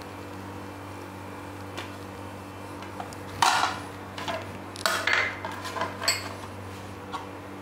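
A small steel bowl knocking and clinking against a plate as it is handled and set down on a slice of bread, a cluster of clinks starting about halfway through, the first the loudest. A steady low hum runs underneath.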